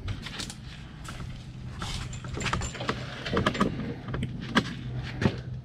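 Irregular metallic clinks, taps and knocks of hand work on the underside of a car at the transmission, with a steady low hum behind them.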